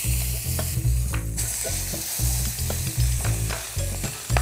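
Lamb searing in melted butter in a stainless steel pot, sizzling steadily as the pieces are turned over with metal tongs.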